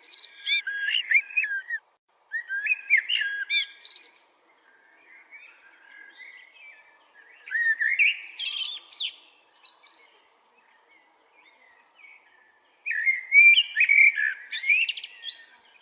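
A bird singing in four bursts of quick, varied chirping and whistled notes, with fainter calls in the pauses between.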